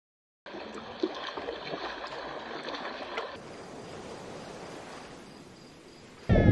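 Running water with a few faint clicks. It starts after a brief silence, drops quieter a little past the middle, and near the end a loud, low whale call breaks in.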